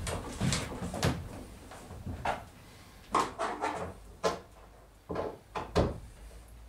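Irregular knocks and scrapes of wood being handled against a fibreglass boat hull, as a curved timber bilge runner is positioned on it. The sharpest knock comes near the end.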